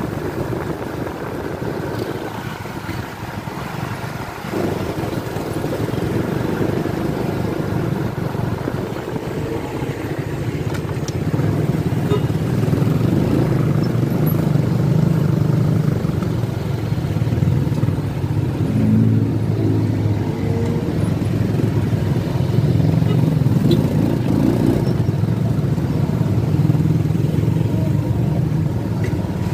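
Motorcycle engine running while riding, a steady drone that grows louder about four seconds in and again after about eleven seconds.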